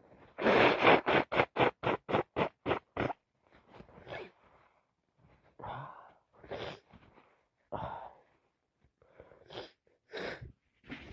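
A person with a heavy head cold making a quick run of about eleven loud nasal bursts, about four a second, then slower, softer sniffs and breaths about a second apart.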